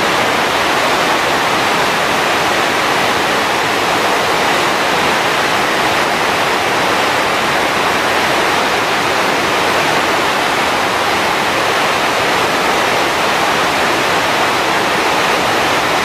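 Fukiware Falls, a broad curtain of river water spilling over a rock ledge: a loud, steady, even rush of falling water.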